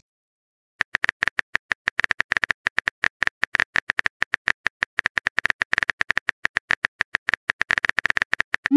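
Simulated phone-keyboard tap clicks as a text message is typed. The clicks come quickly and irregularly, several a second, starting about a second in. Right at the end a short rising whoosh begins as the message is sent.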